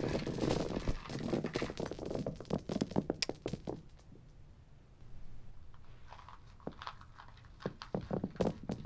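Shower of coins, mostly pennies, dropped onto a shag carpet: a dense run of quick taps for about four seconds, a short lull, then a second shower of taps starting about six seconds in.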